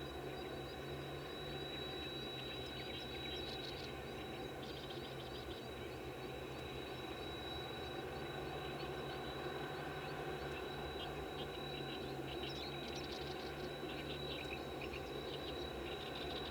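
Small wild birds chirping in quick clusters, twice, over a steady mechanical hum with a constant thin high whine.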